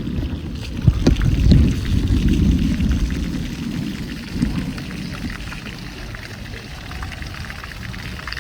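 Water sloshing and splashing close by, loudest for the first three seconds with a few sharp slaps, then settling to a lower, steadier wash.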